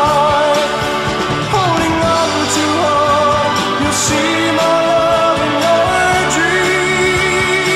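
A late-1960s rock ballad recording playing: held melody lines moving between notes over a steady band backing.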